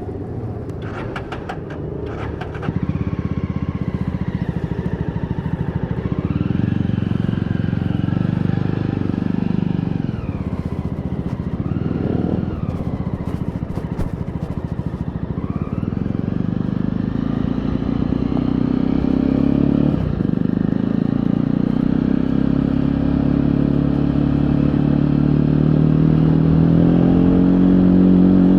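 Jawa 42's 293 cc single-cylinder engine pulling away and accelerating through the gears. Its pitch rises and drops back several times as it shifts, then climbs steadily near the end.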